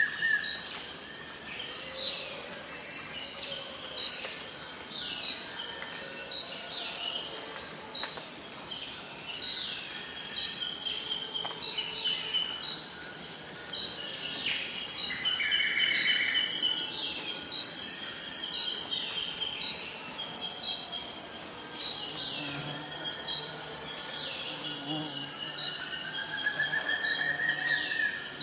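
Tropical rainforest ambience: a steady, high-pitched insect drone with many short bird calls scattered over it, and an arching whistled call near the end.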